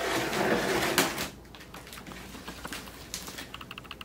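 Packing tape tearing off a cardboard shipping box: a loud rip for about a second that ends in a sharp snap, then lighter crackling and ticking of tape and cardboard.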